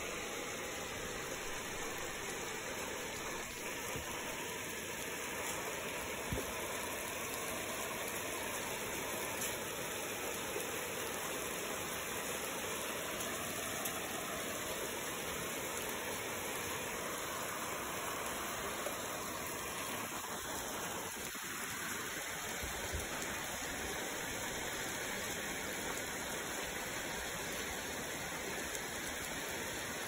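Steady rushing hiss, even from low to high pitch, with a few faint knocks.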